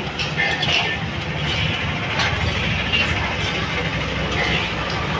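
Steady low rumble of a heavy vehicle nearby, with light ticks and clinks over it.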